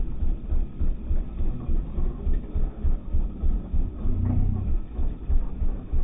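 Regular low thumps of footsteps, about three a second, carried through the phone as the hunter walks along a dirt field edge, with a brief low hum about four seconds in.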